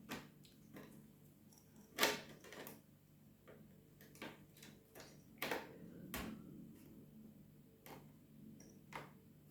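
Faint, irregular clicks and knocks, about ten of them with the loudest about two seconds in: a many-pinned Zorro connector being handled and pressed into the holes of an Amiga 2000 motherboard, stiff to seat because of a slightly misaligned pin.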